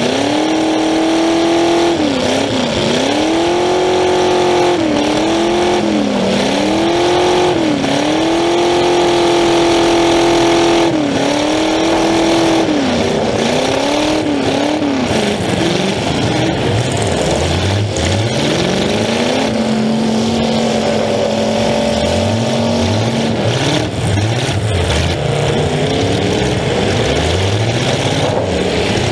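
Demolition derby car's engine running loud through open exhaust pipes that stick up through the hood, revved up and let back down again and again, with a few steadier stretches at high revs.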